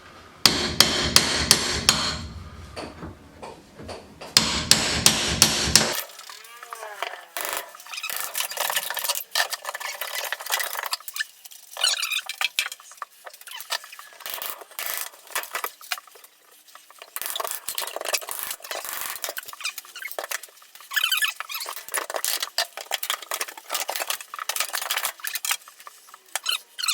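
Wooden door trim being knocked and pried off a wall: two quick runs of sharp hammer blows, about three a second, in the first six seconds, then a long stretch of wood cracking, creaking and squeaking with scattered clicks as the trim is worked loose.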